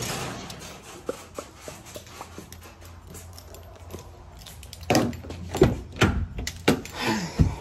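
Footsteps and knocks from a handheld phone being carried while walking: scattered light clicks, then a run of heavier thumps from about five seconds in.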